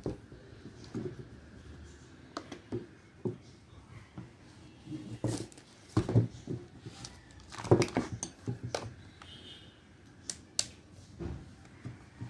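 Hands handling a new, unstarted DeWalt DW5200 gas chainsaw: scattered clicks, knocks and rattles of its plastic housing and handle being turned and gripped, busiest around the middle.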